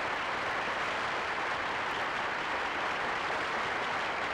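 Television studio audience applauding steadily to greet a performer coming on stage.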